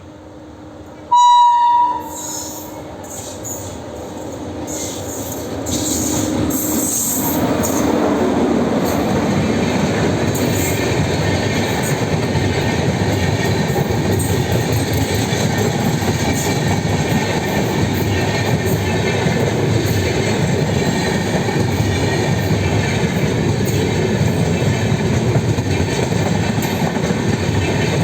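An Indian Railways WAP5 electric locomotive gives one short, loud horn blast about a second in. The express train then approaches, growing louder over several seconds, and passes with a steady rumble and the clatter of coach wheels over the rails.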